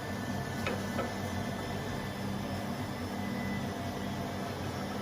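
Steady hum of running machinery, with a couple of light clicks about a second in.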